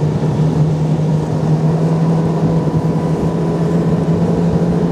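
Hidea 60 hp propeller outboard motor running steadily at speed, pushing the boat along on the plane, with water and wind rushing past, heard from aboard.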